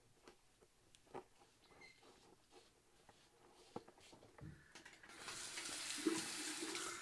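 Faint scattered clicks and ticks, then from about five seconds in a steady rushing hiss.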